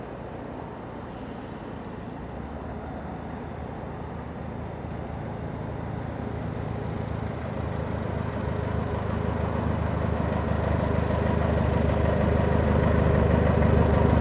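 Light aircraft's piston engine running, growing steadily louder throughout.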